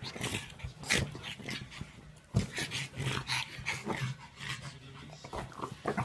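Pug making a quick string of short sounds, the loudest about a second and two and a half seconds in.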